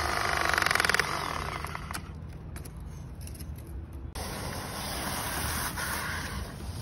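A cordless power tool buzzing rapidly on a water service pipe for about a second. After an abrupt change about four seconds in, there is the steady hiss of water spraying from the opened water line.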